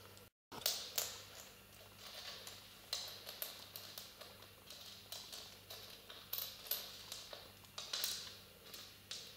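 Scattered light taps and clicks, roughly one or two a second, as a pet mouse picks up and drops small coins on a wooden floor beside a piggy bank. The sound cuts out briefly just after the start.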